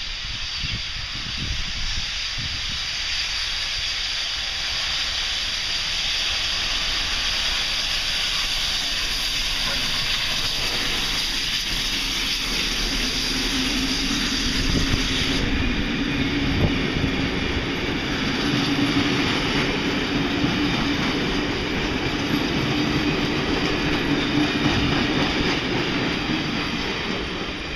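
NSWGR 59 class steam locomotive 5917 approaching and passing with its train: a steady hiss of steam, then from about halfway a low rolling hum with repeated clacks as the tender and heritage carriages roll by over the rails.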